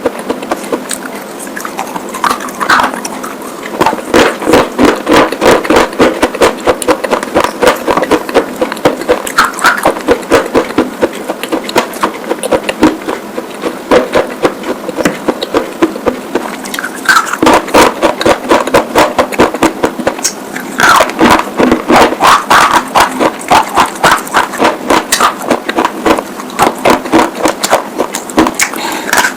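Close-miked crunching and chewing of white slate pieces: rapid, sharp crunches in loud runs, with brief lulls between them.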